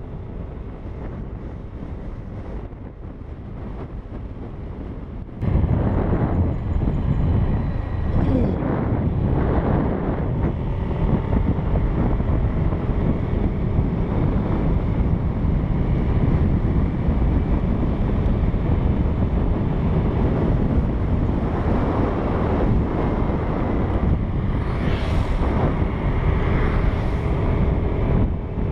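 Wind buffeting the microphone while riding a Yamaha Aerox scooter, with the vehicle running underneath; it gets much louder suddenly about five seconds in.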